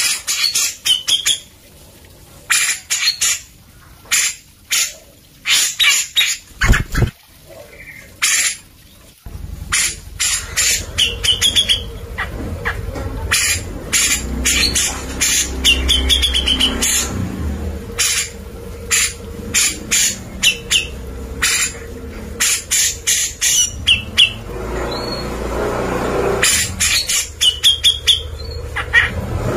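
Caged grey-cheeked bulbul (cucak jenggot) singing energetically: quick runs of short, loud notes, some with a rapid warble, with gaps of a second or so between runs.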